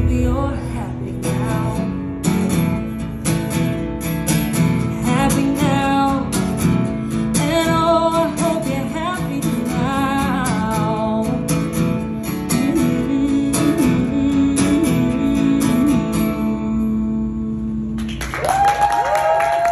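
A woman singing a country song to her own strummed acoustic guitar; the song winds down to a held chord ringing out, and clapping with cheers starts near the end.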